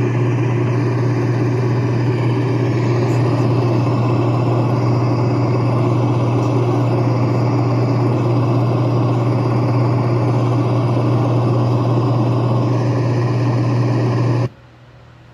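Housbay white noise machine playing one of its built-in sound tracks through its speaker: a loud, steady noise with a deep hum beneath it, which cuts off suddenly near the end.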